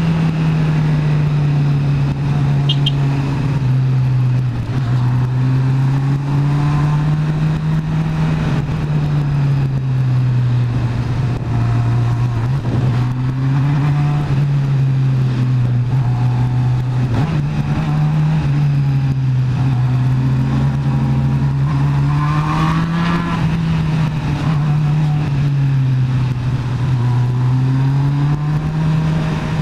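Motorcycle engine heard from the rider's seat, running at low revs that rise and fall gently every few seconds as the rider eases on and off the throttle. Steady wind and road noise run underneath.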